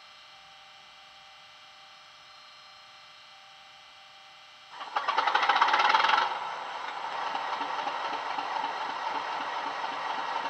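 Bachmann Class 37 model locomotive's factory-fitted DCC sound decoder, played through a 35x20x7mm double iPhone speaker, running a diesel engine start-up: a steady faint hum, then about five seconds in a loud surge as the engine fires, settling after a second and a half into a steady rattling idle.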